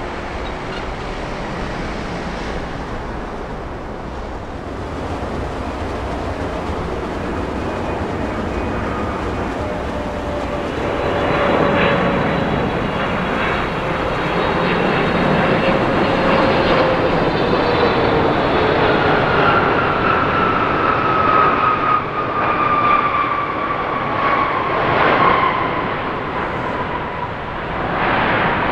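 Jet engines of a Boeing 777 twin-jet airliner passing the runway. The jet noise grows louder from about a third of the way in, with engine whines gliding slowly down in pitch.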